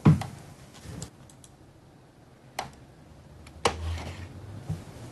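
A sharp knock at the start, then a few isolated clicks of a computer mouse spread over the next few seconds.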